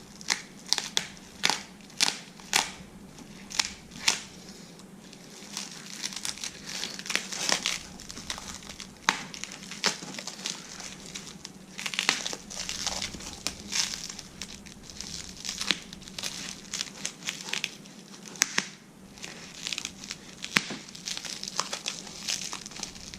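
Packing wrap crinkling and crackling as it is carefully peeled away by hand, a long run of short, irregular crackles over a faint steady hum.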